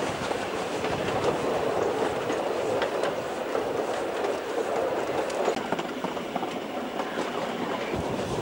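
Narrow-gauge steam-hauled passenger train running, heard from a carriage window: a steady rolling noise of the carriages' wheels on the rails, with scattered clicks.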